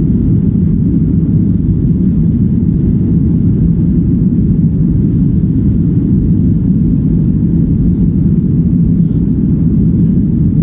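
Jet airliner engines and airflow heard from inside the passenger cabin during the climb after takeoff: a steady, even low rumble.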